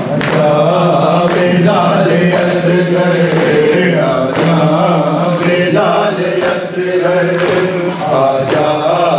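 A group of men chanting a noha (Shia mourning lament) together over a steady low held note. Sharp thumps of hands striking chests (matam) fall about once a second.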